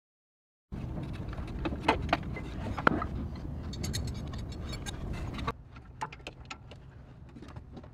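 Fan belt being worked off the pulleys of a Cummins ISX15 diesel with the belt tensioner levered back: clicks and clatter of the ratchet, tensioner and belt, over a low rumble that drops away about five and a half seconds in, leaving lighter scattered clicks.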